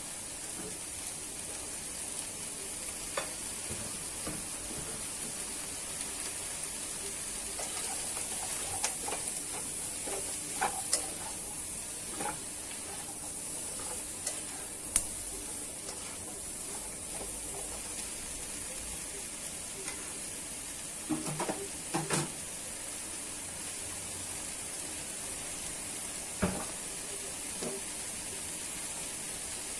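Sliced celery and dried scallops sizzling steadily in a wok, with a spatula now and then scraping and knocking against the pan as the vegetables are stirred; the loudest knocks come in a quick cluster about two-thirds of the way in.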